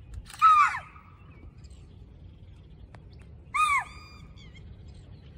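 Two shrill alarm calls from spotted deer (chital), one about half a second in and one about three seconds later, each a short yelp that falls in pitch at its end. Spotted deer call like this on seeing a leopard. Faint bird chirps come between them.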